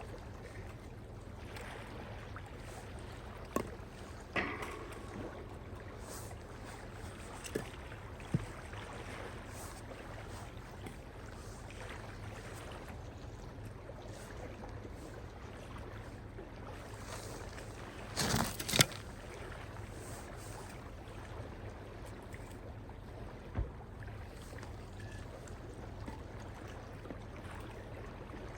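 Steady low rumble with scattered light knocks and a brief louder rustle near the middle, as firewood is handled to lay a campfire.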